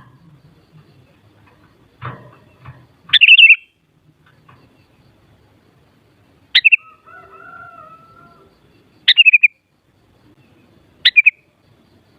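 Sooty-headed bulbul calling: four short, loud chirping phrases about two to three seconds apart, with a fainter lower whistle in between.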